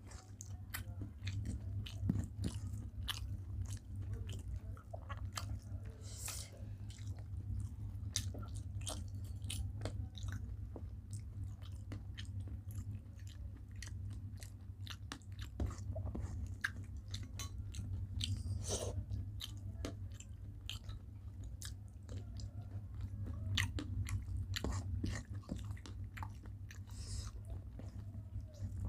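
Close-up chewing and biting of a rice-and-curry meal: many small wet mouth clicks and crackles, over a steady low hum.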